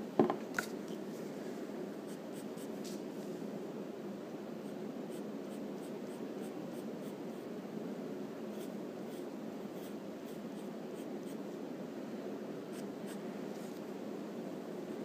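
Wooden graphite pencil scratching on paper in short, scattered strokes over a steady low hum. A couple of sharp knocks sound about half a second in.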